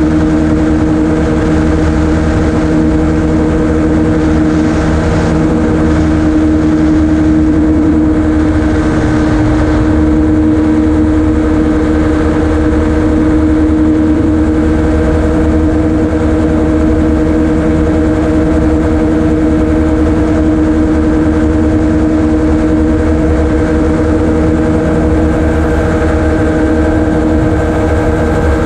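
Ultralight gyroplane's engine running steadily in flight. It is a constant loud drone with one strong steady tone that holds at the same pitch throughout.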